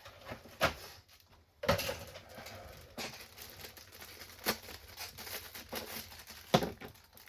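Small plastic kit parts and tools being handled on a workbench: scattered clicks and light knocks with rustling between, four sharper knocks standing out.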